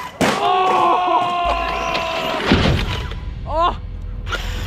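Hobbywing EZRun 56118SD 1100kv brushless motor in a Traxxas XRT RC truck whining with the wheels spinning free during a jump. It starts suddenly, holds a steady high whine that sags slightly for about two seconds, then gives a quick rising rev near the end.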